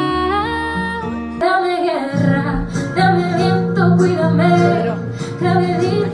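Music: a woman singing a pop song over guitar accompaniment, after an abrupt change in the music about a second and a half in.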